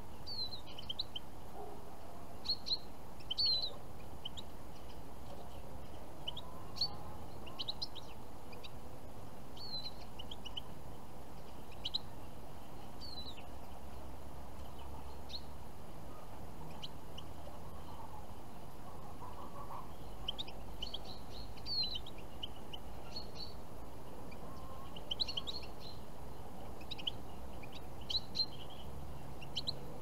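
European goldfinches calling: short, high chirps scattered irregularly, coming in quick clusters about two-thirds of the way through and again near the end, over a steady low background hum.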